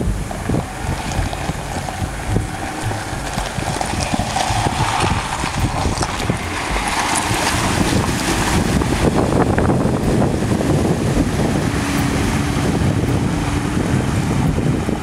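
Five-door Lada Niva's engine running as it drives through a shallow river ford, with water splashing and rushing around the wheels, and wind on the microphone. It gets louder about halfway through as the car wades deeper.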